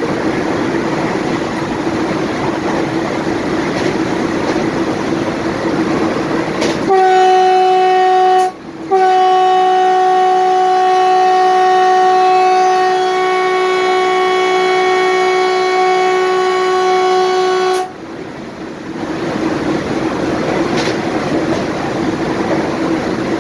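Steady running noise of a train rolling slowly with a steady hum. About seven seconds in, a train horn gives a short blast, then after a brief break one long blast of about nine seconds that cuts off suddenly, and the running noise comes back.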